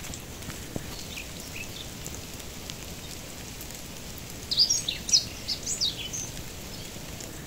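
Steady hiss of light rain on forest foliage. A small bird gives a quick burst of high chirps about halfway through, with a few fainter chirps earlier.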